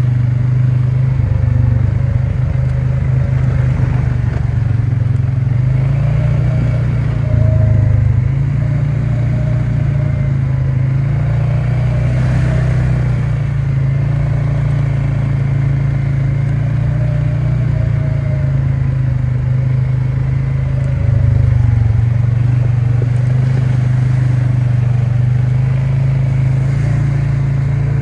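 ATV engine running steadily as the quad rides along a dirt trail, a low drone that briefly gets louder twice.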